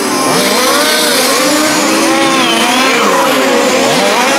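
Several 1:5-scale RC race cars' small two-stroke petrol engines revving up and down as they lap the track, their overlapping pitches repeatedly rising and falling.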